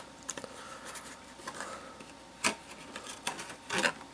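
Cardboard flaps of a Pokémon card booster box being folded and handled: soft rubbing and scraping with a few sharp taps, the loudest about two and a half seconds in and a small cluster near the end.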